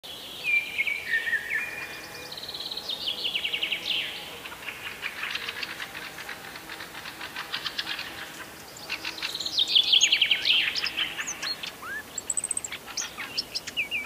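Several wild songbirds singing and calling at once: whistled phrases, fast trills and runs of quick repeated notes, loudest about ten seconds in.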